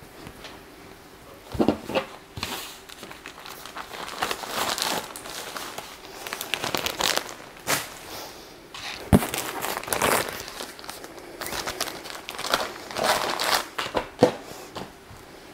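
Hands unpacking and handling swimsuits: irregular rustling and crackling, with a few sharp clicks.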